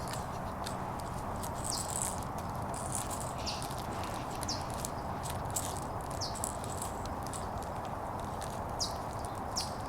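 Five-week-old Shiba Inu puppies playing and chewing, heard as many short, light, high scratches and clicks scattered irregularly through, over a steady background hiss.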